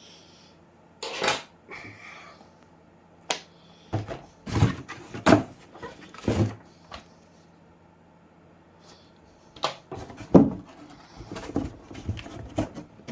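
Irregular clicks and knocks of hard objects being handled, in scattered bursts with a quiet gap of about two seconds in the middle; the sharpest knock comes about three-quarters of the way through.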